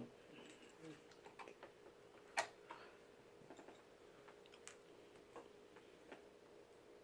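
Faint, scattered small clicks and taps of laptop parts being handled during reassembly, screws and cable connectors being fitted, with one sharper click about two and a half seconds in. A faint steady hum lies underneath.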